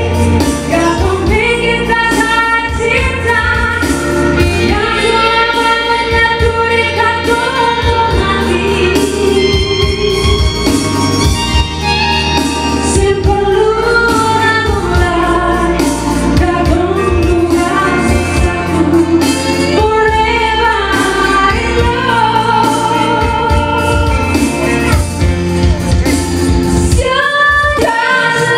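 A woman singing lead into a microphone with a live band accompanying her, holding long, sliding notes.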